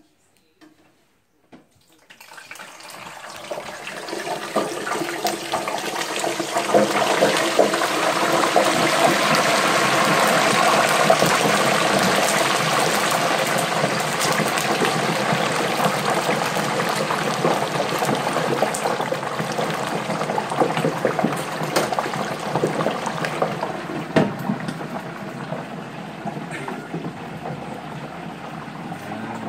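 Hot oil in an electric turkey deep fryer bubbling and sizzling hard as a whole turkey is lowered slowly in, with a constant crackle. It starts about two seconds in, builds to its loudest in the middle and slowly eases off.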